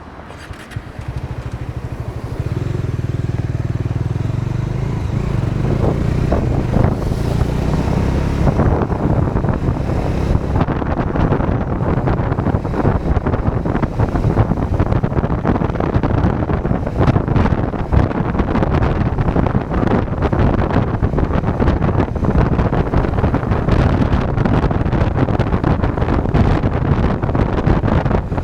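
Bajaj Dominar 400 motorcycle's single-cylinder engine getting under way, the sound growing louder over the first few seconds, then running steadily at riding speed with dense road and wind noise.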